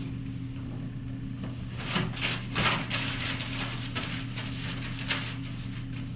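Paper towels crackling and rustling for a second or so as they are pulled from a wall dispenser and crumpled to dry hands, loudest about two seconds in, with a light click near the end. A steady low electrical hum sits underneath throughout.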